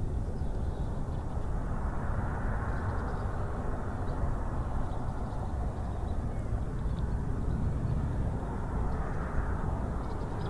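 Wind on an outdoor microphone: a steady low rush with a fluttering low end, swelling in gusts about two seconds in and again near the end.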